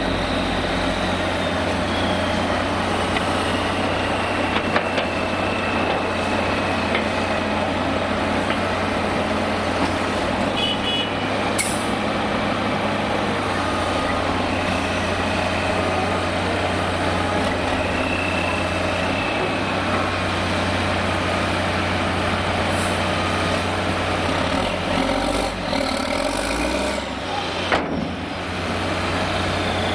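Heavy diesel engines of tipper trucks and a tracked excavator running steadily while sand is unloaded, with a short air-brake hiss about 11 seconds in.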